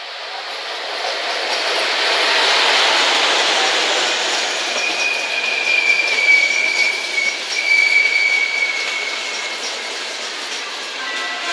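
Passenger train hauled by a class 350 electric locomotive rolling past on the near track. The locomotive goes by loudest about two to three seconds in, then the coaches follow with a steady high squeal from the wheels lasting about five seconds and a light clatter over the rail joints.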